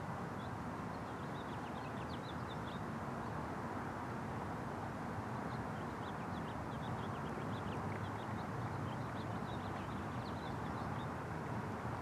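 Small birds chirping in quick, short high calls, in two spells, over a steady outdoor background noise.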